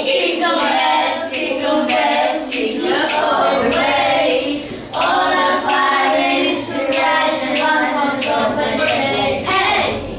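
A group of children singing together, with steady hand clapping in time to the song.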